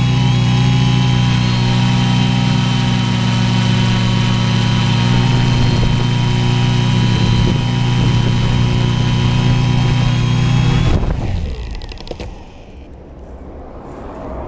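Quadcopter's electric motors and propellers running with a steady multi-tone hum and whine, then stopping about eleven seconds in, the pitch falling as the props spin down on landing.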